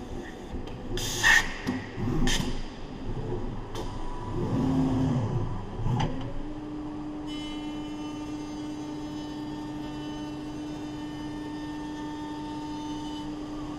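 HOMAG Venture 20 CNC machining center at work: a few short sharp noises, then its drives glide up and down in pitch as the head moves, and from about halfway the spindle runs at a steady pitch with a high whine over it.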